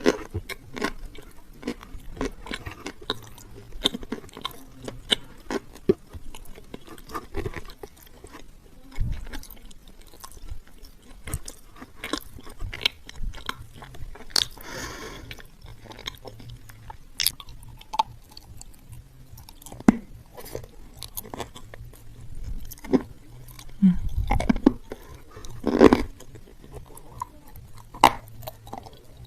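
A person crunching and chewing dry edible clay close to the microphone: a steady run of sharp, crackly crunches, with a few louder bites near the end.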